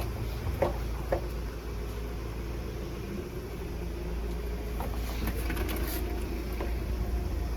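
An engine running steadily with a low rumble, with a couple of short faint sounds in the first second or so.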